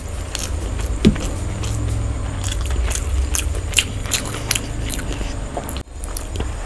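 Close-up eating sounds: a person biting and chewing food, with many short sharp clicks and smacks over a steady low rumble, and a brief gap near the end.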